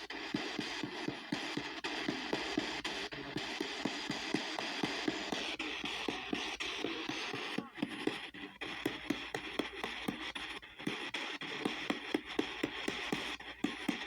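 P-SB7T spirit box sweeping the AM band at 250 ms a step, played through a speaker spout on its headphone jack: static hiss chopped by a rapid run of clicks, about four a second, with brief snatches of broadcast sound.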